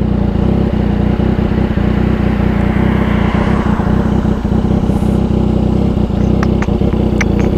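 Yamaha XSR900's inline-three engine running steadily through a near-straight-piped Mavericks exhaust: an even low drone with no revving. A few light clicks near the end.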